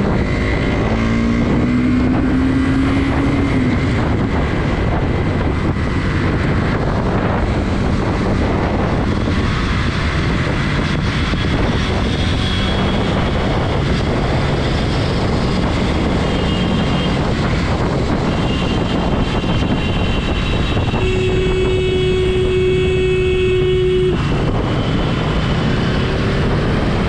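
Steady motor vehicle and road noise throughout. A tone rises in pitch in the first few seconds, and a steady tone is held for about three seconds near the end.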